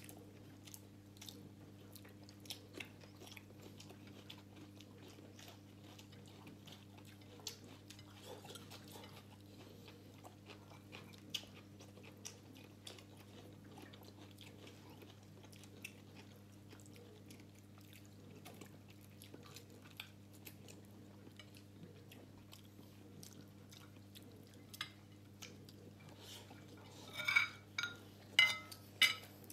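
Close-miked eating by hand: chewing with many small mouth clicks over a steady low hum. Near the end, a quick run of sharper clinks of a spoon against a plate.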